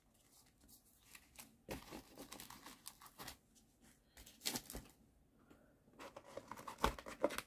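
Faint rustling and scattered light clicks of sleeved trading cards and their plastic sleeves being handled at a cardboard card box.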